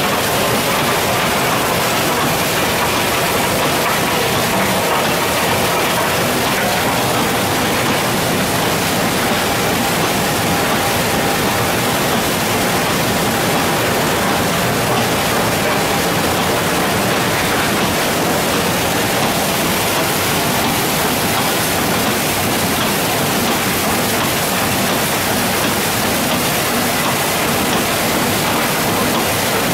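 Cassiterite sand separating plant running: a steady, even rush of flowing water and slurry mixed with the running of jig, shaking-table and slurry-pump machinery.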